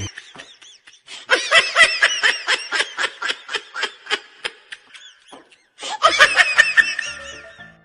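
A person laughing in quick repeated ha-ha bursts, about four or five a second, in two runs with a pause of about a second between them.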